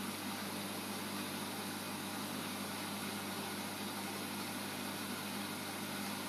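Reef aquarium pumps running: a steady low hum over an even hiss.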